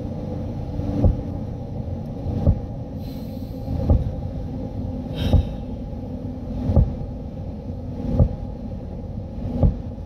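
Vehicle running, heard from inside the cab: a steady low rumble and hum, with a soft thump repeating evenly about every second and a half.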